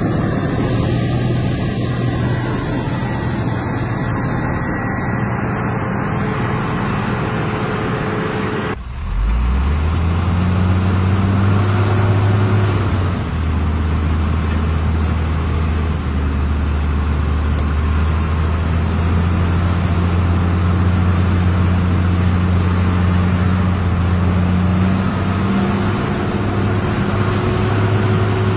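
Heavy diesel machinery engines running steadily. About 9 s in the sound breaks off abruptly and a deeper engine note takes over, rising briefly and then holding steady.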